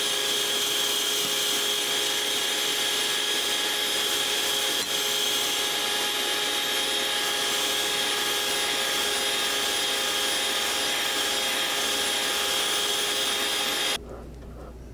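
Electric hand mixer running steadily at medium speed, its twin beaters whisking thick cake batter in a glass bowl, a constant whine that cuts off about a second before the end.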